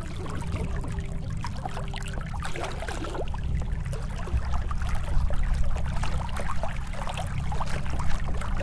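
Lake water lapping and trickling against a small boat's hull, with small splashes scattered throughout over a steady low rumble.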